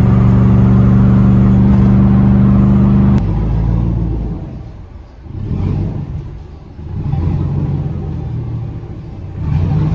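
2000 Chevrolet Silverado pickup's engine running. A steady drone for about three seconds, then, after a sudden change, it rises and falls several times.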